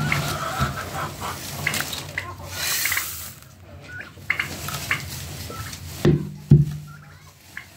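Crushed corn grain pouring and shifting in a plastic bucket of poultry feed mix: a rustling hiss much like running water, strongest about three seconds in. Two sharp knocks about six seconds in.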